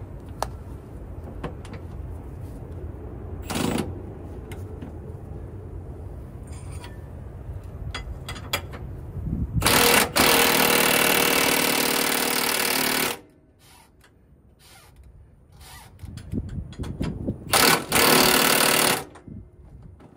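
Milwaukee M18 cordless 1/2-inch impact wrench hammering the torsion bar bolts tight. There is a short burst about three and a half seconds in, a long run of about three and a half seconds starting about ten seconds in, and another of about a second and a half near the end. Light clicks and clanks of handling come between the runs.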